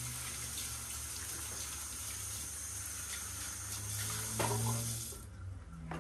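Kitchen tap running into a sink, shut off abruptly about five seconds in.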